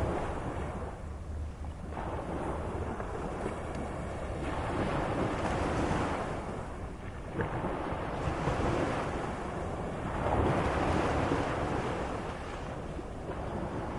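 Moderate sea waves breaking and washing in, the rush of water swelling and falling back every two to three seconds.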